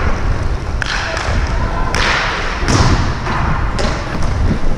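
Hockey game sounds: skates and rushing air make a steady low rumble, broken several times by sharp clacks of sticks and puck.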